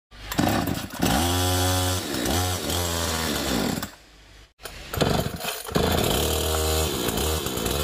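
TOTAL TG945185 gasoline chainsaw's two-stroke engine being pull-started and running, its pitch dipping and rising as it is revved. It stops about four seconds in, then runs and revs again.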